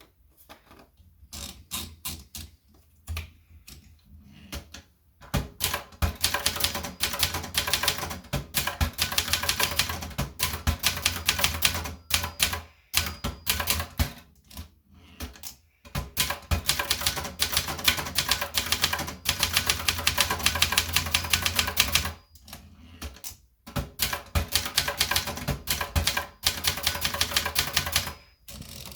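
Brother Deluxe 250TR typewriter being typed on: rapid key and typebar clacks in long runs broken by short pauses, with a few scattered strokes at first.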